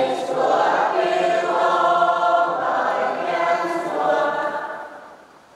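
Choir singing a short sung response to the Gospel reading, several voices holding long notes together and fading out near the end.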